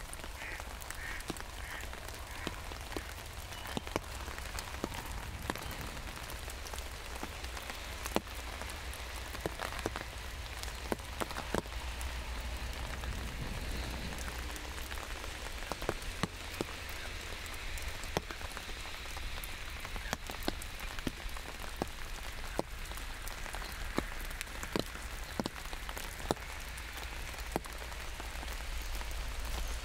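Steady rain falling on an umbrella, with many individual drops tapping sharply on the fabric over an even hiss, and a low rumble underneath.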